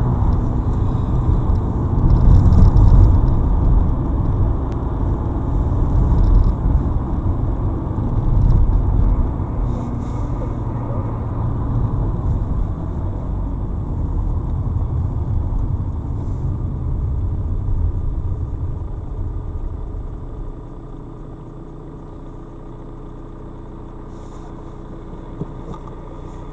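Car driving, heard from inside the cabin: steady engine and road rumble, which drops to a quieter idle hum about twenty seconds in as the car slows to a stop in queued traffic.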